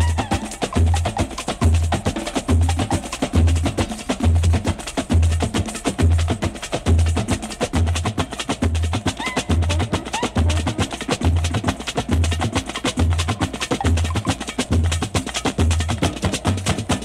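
Background music with a steady bass beat, a little more than one beat a second, under busy clicking percussion.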